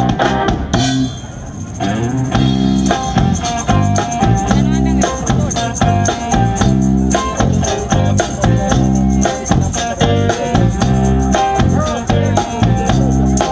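Band music without singing: guitar over a steady drum beat with tambourine, dropping briefly in level about a second in.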